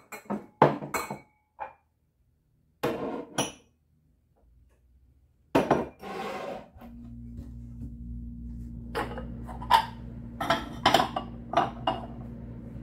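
Glasses and mugs clinking and knocking as they are moved about and set down on cabinet shelves, in scattered strokes with short silences between. A steady low hum comes in about halfway through.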